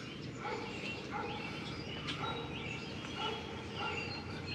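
Faint bird calls, short scattered chirps over a low steady background hum.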